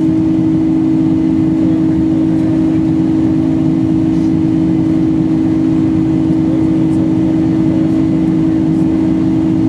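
Boeing 747-400 cabin noise during the climb after takeoff: the steady drone of the four turbofan engines and rushing air, with a strong steady low hum over a dense rumble.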